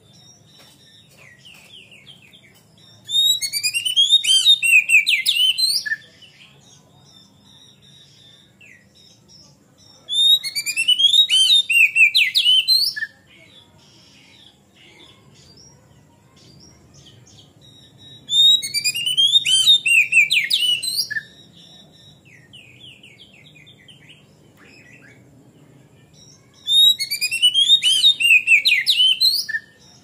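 Male oriental magpie-robin (kacer) in full song: four loud bursts of rapid, varied whistled notes, each about three seconds long, coming roughly every seven to eight seconds, with faint chirps between them.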